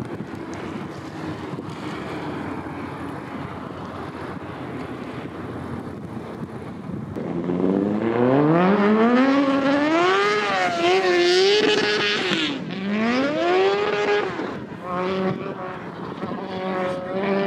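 An engine speeding up. About halfway through, its pitch climbs steeply, wavers, dips once and climbs again, then holds steady near the end, over a steady background of wind and hum.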